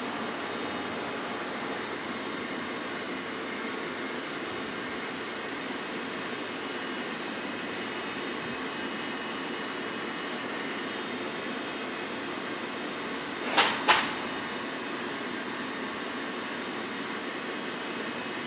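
A steady mechanical drone with a faint hum, and two short sharp clicks in quick succession about three-quarters of the way through.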